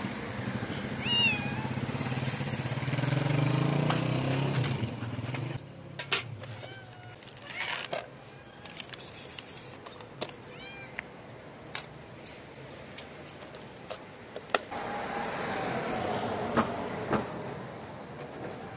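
Stray cats at foil food trays: a few short meows and scattered small clicks of eating and trays on the paving. A passing car's low hum fills the first five seconds and comes again near the end.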